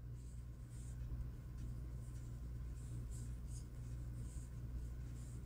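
Faint, irregular scratchy rustles of yarn being drawn over a metal crochet hook and through the fingers as double crochet stitches are worked, over a steady low hum.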